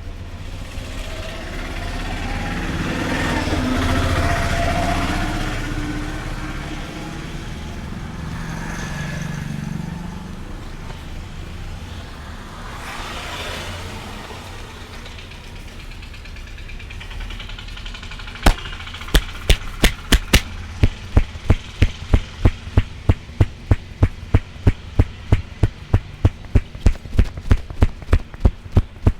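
Rapid rhythmic slapping, about three sharp hand strikes a second, starting about two-thirds of the way in: a barber's percussive hand-tapping massage. Before it, a rumbling noise swells and fades.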